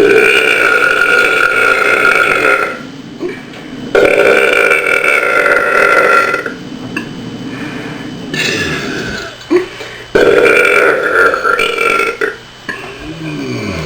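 A person deliberately burping loudly, long drawn-out belches one after another: three long burps of two to three seconds each, with a shorter, weaker one between the second and third.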